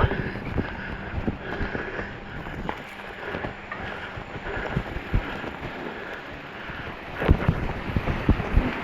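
Specialized Stumpjumper 6Fattie mountain bike being ridden along a trail: wind on the microphone and tyre noise, with frequent knocks and rattles from the bike. A cluster of harder knocks comes about seven seconds in.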